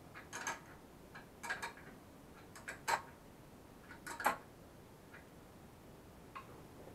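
Scattered small clicks and short rustles of hands handling the wiring behind a kids' ATV headlight, the sharpest clicks about three and four seconds in.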